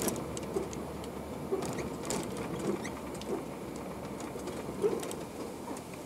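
Engine and road noise heard inside a moving vehicle's cab, with irregular small clicks and rattles from the cab and the dashcam mount.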